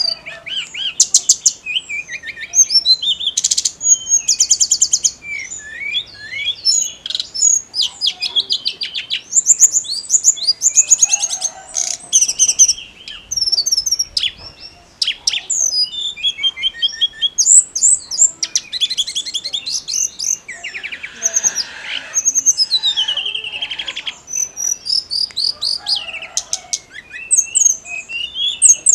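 Tledekan gunung songbird singing a fast, varied song of high chirps, trills and sliding whistles with only short pauses.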